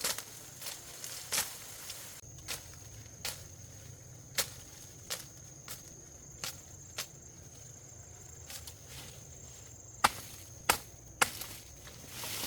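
A string of sharp, short snaps, irregularly about one every half second to second, with three louder ones near the end, over a steady high-pitched insect drone that starts about two seconds in.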